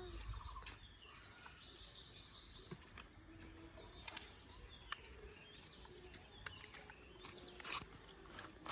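Quiet outdoor ambience with faint bird chirps and a few scattered short clicks.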